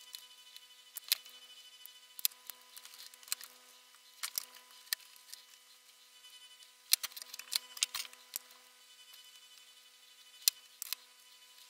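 Small, sharp clicks and taps of metal tweezers and a soldering iron tip against a circuit-board quadcopter frame and its wires while ESC leads are soldered to its power pads. The clicks come irregularly, busiest about four seconds in and again from about seven to eight and a half seconds, over a faint steady hum.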